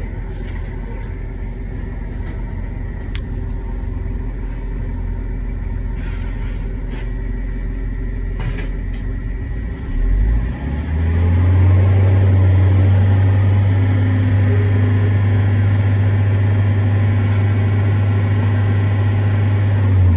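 2010 Mitsubishi Fuso FE's 3.0 L four-cylinder diesel idling, heard from inside the cab. About ten seconds in it is revved up and held steady at around 3,000 rpm, a louder, deeper-toned drone.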